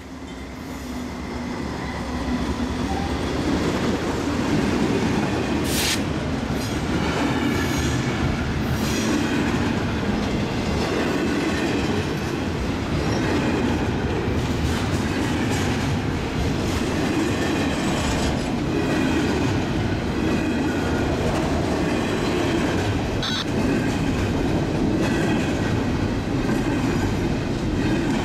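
Norfolk Southern freight train passing close by: diesel locomotives, then double-stack container cars rolling past, a steady rumble of wheels on the rails with a few brief high wheel squeals.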